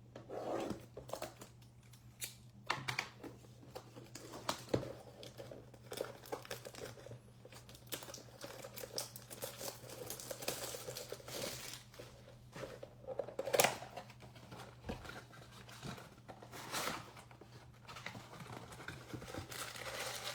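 A 2022 Bowman baseball mega box being torn open and its card packs pulled out by hand: irregular crinkling, tearing and rustling of wrapping and cardboard, with scattered sharp clicks and one louder crack about two-thirds of the way through.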